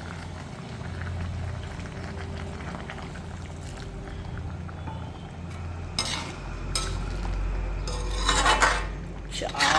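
A utensil stirring and scraping in a cooking pot of chicken curry, over a steady low hum. Sharp metal clinks against the pot come about six seconds in and again in a cluster near the end.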